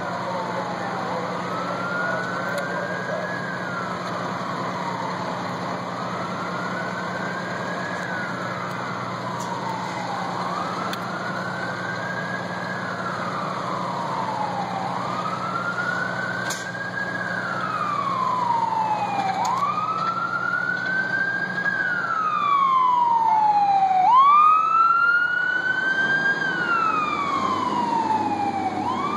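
Fire truck siren wailing, its pitch slowly rising and falling about every four and a half seconds, getting louder as the truck approaches. A second, higher siren wail joins in near the end.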